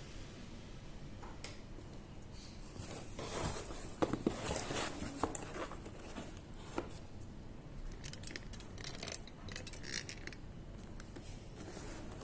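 Handling noise: scattered, irregular clicks and short rustles, starting about three seconds in and thinning out near the end.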